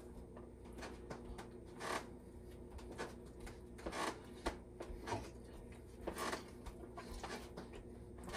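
Soft, irregular rustles and clicks of a person eating a slice of microwaved pizza, chewing and handling the food, about one every second or two over a steady low hum.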